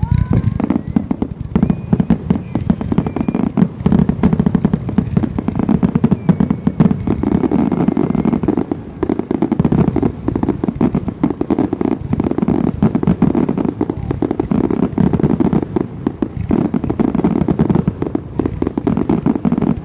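Fireworks grand finale: a continuous barrage of aerial shell bursts and ground fountains, many explosions a second with no pause.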